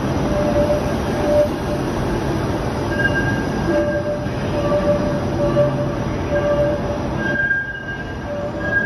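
TTC Flexity Outlook low-floor streetcar rolling past on a tight curve, its steel wheels squealing in short high tones over the car's rumble. The rumble drops away about seven seconds in as the car pulls off into the tunnel.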